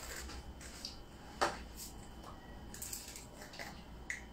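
A few light clicks and taps from handling a small jar of edible glitter and its lid.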